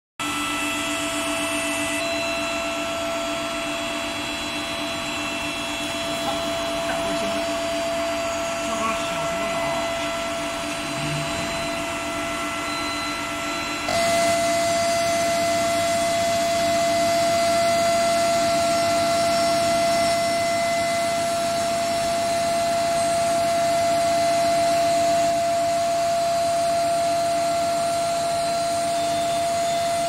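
Induction tube heat-treatment machine running: a steady mechanical hum and hiss with several steady whining tones. About halfway through it steps up louder and stays there.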